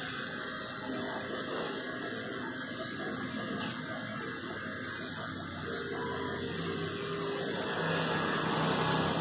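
Electric dog clipper running steadily as it shaves down a cocker spaniel's shoulder coat, an even mechanical buzz and hiss.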